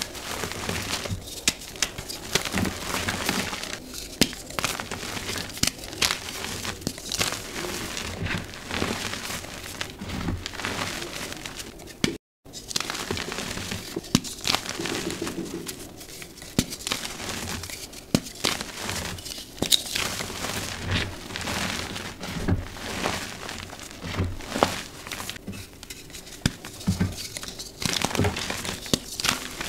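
Bare hands crushing and crumbling dyed gym chalk blocks into powder: a dense run of crunching, crackling squeezes with a soft, dusty crumble. The sound drops out briefly about twelve seconds in.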